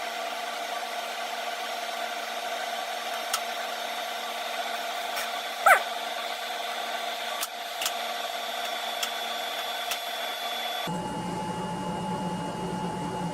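Steady hiss and hum of running computer hardware, with several steady tones, a few faint clicks and a brief rising chirp about six seconds in. About eleven seconds in, the background changes abruptly to a lower hum.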